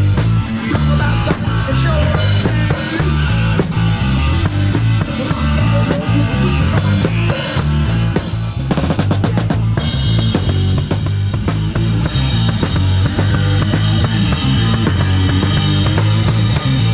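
Live rock band playing, with a drum kit close up: snare, bass drum and cymbals over a low repeating bass line and electric guitar. A quick run of drum hits comes about halfway through.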